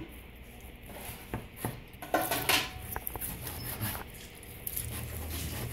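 Kitchen knife cutting through grilled jerk pork and knocking on a cutting board: a few scattered short knocks, with a brief scrape a little over two seconds in.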